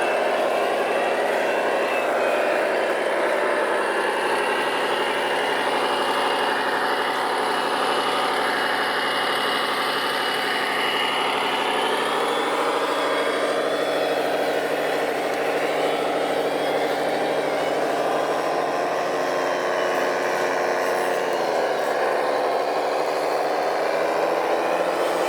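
Radio-controlled trucks running, the motor pitch rising and falling with the throttle.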